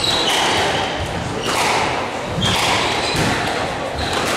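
Squash rally: the ball is struck by racquets and hits the walls in sharp knocks roughly once a second, with shoes squeaking on the wooden court floor.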